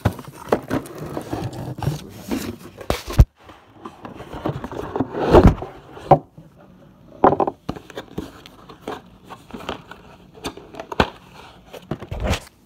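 Cardboard packaging being handled: scrapes, rustles and knocks as the box and its insert are moved about, with a sharp knock about three seconds in and a louder rubbing sound a couple of seconds later.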